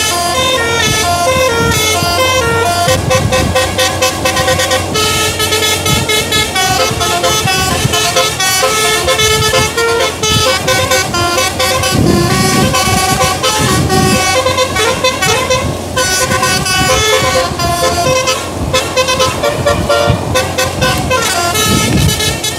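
A bus's musical air horn of the 'basuri' telolet kind playing a quick tune of short notes that step up and down without a break. Deep rumbles come in about halfway through and again near the end.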